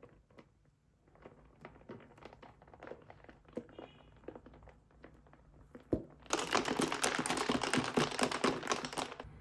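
Close handling noise: light clicks and rustles, a thump about six seconds in, then about three seconds of loud crinkling and crackling that stops just before the end.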